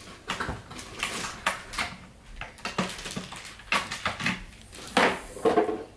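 Irregular clicks and knocks of hard plastic toy pieces being handled and tapped on a plastic play table.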